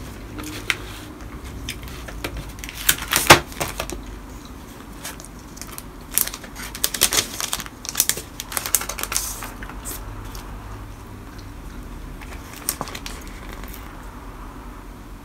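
Clear plastic sleeve of a sticker sheet crinkling and rustling as it is handled, mixed with light clicks and taps against the desk. The loudest burst comes about 3 s in, and another cluster of crinkling from about 6 to 9 seconds, then only an occasional tap.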